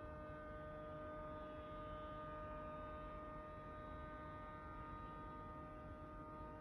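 A constant, steady hum made of several unchanging tones over a low rumble: the unexplained night-time noise that keeps going.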